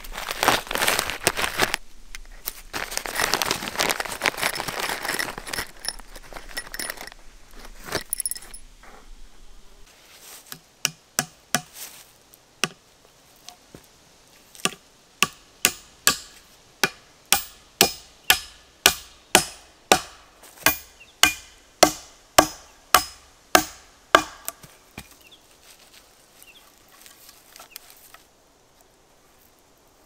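Plastic sheeting crinkling and rustling as it is handled for the first several seconds. Then a run of about two dozen axe strikes into a log, evenly spaced a little under a second apart.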